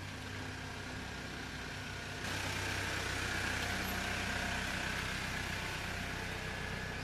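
Jeep Wrangler's engine running at low speed as it drives slowly past towing a tandem-axle trailer: a steady low hum that gets louder about two seconds in.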